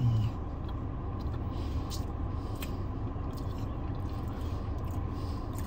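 Steady low rumble of a car idling, heard from inside the cabin, with faint wet clicks of chewing over it.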